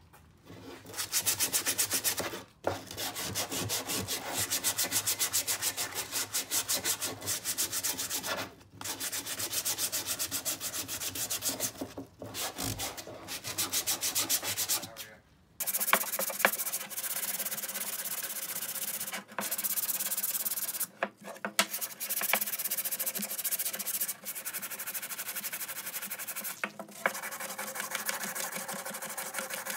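Sandpaper rubbed by hand over a wooden hand-saw handle in quick back-and-forth strokes, a dry scratchy rasping broken by a few brief pauses.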